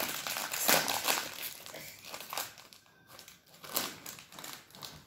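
Small foil snack packet crinkling and rustling as it is pulled and torn open by hand, loudest about a second in.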